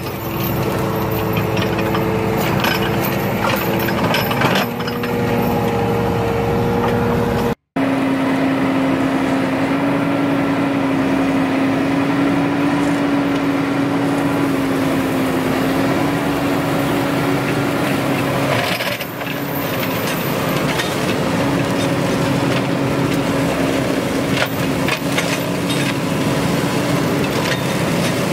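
Tractor engine and a rear-mounted twin-head flail mower running steadily, the spinning flail heads cutting grass and brushwood. The sound cuts out for an instant about eight seconds in, then picks up again as a steady hum.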